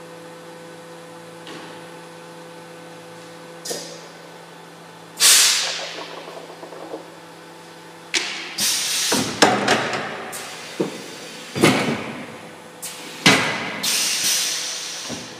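Automatic L-welding machine working: a steady electrical hum, then a run of loud mechanical clanks and knocks, some trailing off in a short hiss. The clanks come more often in the second half.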